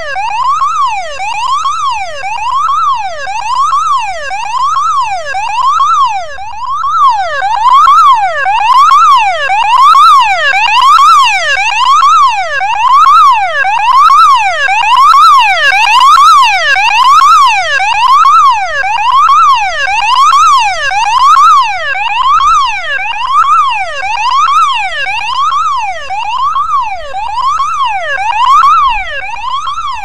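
Electronic car alarm siren wailing continuously, its pitch sweeping up and down about once a second.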